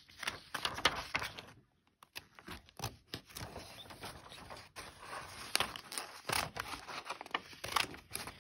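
Metal scissors snipping through a sheet of paper, cut after cut in an irregular series, with a brief pause just before two seconds in.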